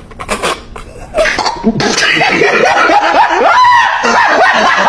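People laughing: a few short bursts at first, then from about a second in, loud laughter from several voices at once.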